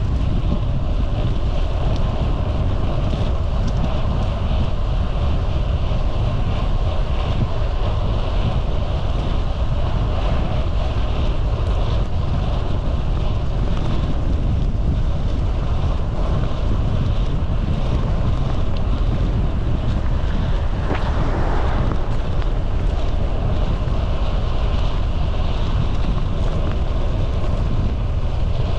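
Wind buffeting the microphone on a moving bicycle: a loud, steady low rumble, with a brief louder rush a little past two-thirds of the way through.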